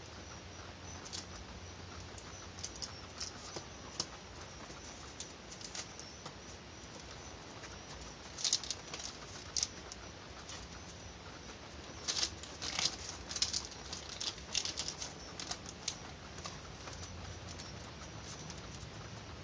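Hands pressing and rolling softened thermoplastic pieces together on a paper-covered tabletop: scattered light rustles and taps, bunched into busier stretches past the middle, over a faint steady hum.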